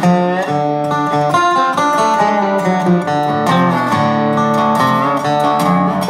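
Background music: an acoustic guitar playing steadily, with some notes bending in pitch.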